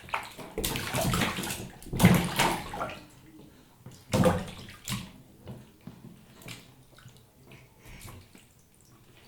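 Bathwater splashed by a baby playing in the tub: a few bigger splashes in the first five seconds, the loudest about two seconds in, then smaller, quieter splashes and drips.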